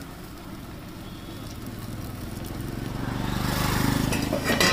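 A motor vehicle passing on the road, its engine and tyre noise swelling to a peak about four seconds in, with a short sharp clatter near the end.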